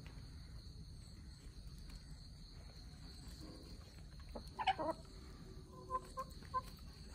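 Chickens clucking while they feed: a short burst of loud calls a little past the middle, followed by three short clucks near the end.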